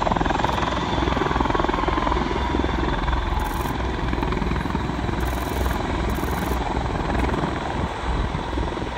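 Bell V-280 Valor tiltrotor flying low and slow in helicopter mode, its two proprotors and turboshaft engines making a loud, steady rotor drone with an even low pulsing of the blades. A faint whine dips slightly in pitch in the first few seconds, and the sound eases a little near the end.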